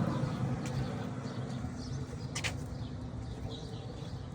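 Small birds chirping faintly, with one sharper, brighter chirp about two and a half seconds in, over a low steady hum.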